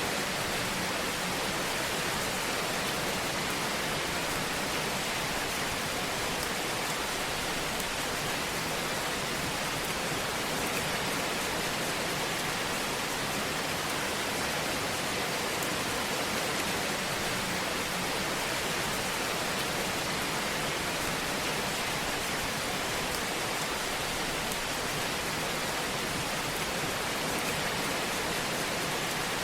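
Fire burning in a fireplace: a steady soft hiss with faint small crackles scattered through it.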